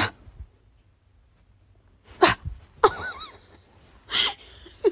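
Kitten making a few short, sharp sneeze-like bursts, with small high squeaky calls that rise and fall between them about three seconds in.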